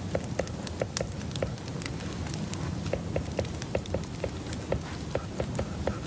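Irregular light clicks and taps, about three to five a second, over a steady low hum.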